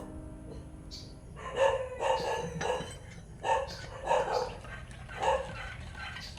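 A dog barking repeatedly: a string of short barks starting about a second and a half in.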